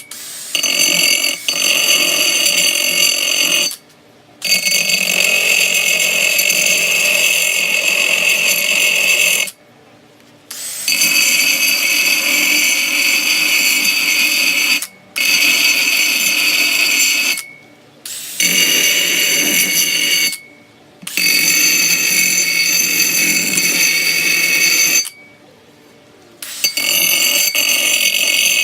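A small grinding wheel on a power tool, whining at high pitch as it grinds the pitted metal seat posts flat. It spins up at the start and runs in bursts of a few seconds, stopping briefly about six times.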